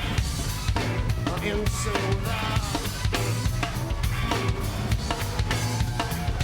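Live rock band playing an instrumental passage: a drum kit keeps a steady beat with kick and snare over a sustained low bass line.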